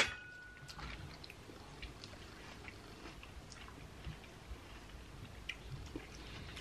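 A clink of cutlery on tableware right at the start, ringing briefly, then only faint, scattered small clicks of people eating at the table.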